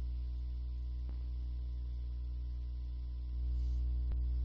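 Steady low electrical hum from the recording setup, with two faint clicks, one about a second in and one near the end.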